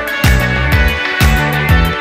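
Background music with a steady drum beat, about two kick-drum hits a second, under sustained instrumental notes and cymbal strokes.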